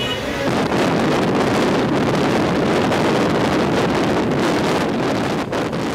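Steady rush of wind buffeting the microphone, filmed from a moving car, over the noise of traffic.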